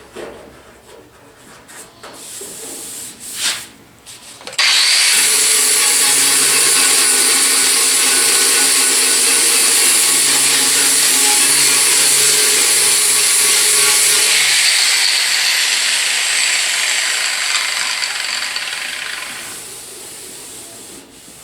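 Power grinder grinding down welds on sheet metal. It starts abruptly about four and a half seconds in, runs steadily and loudly for about ten seconds, then fades away over about five seconds. A few light clicks come before it starts.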